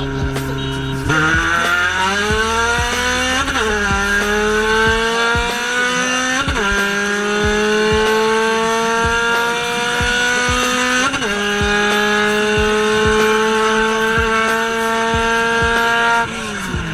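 Honda K24A2 four-cylinder in a K-swapped Acura Integra, heard from inside the cabin. It goes to full throttle from a steady cruise about a second in and pulls hard, its pitch climbing through the gears. Three quick upshifts each drop the pitch, at about three and a half, six and a half and eleven seconds in, and the revs fall away near the end as the throttle is lifted.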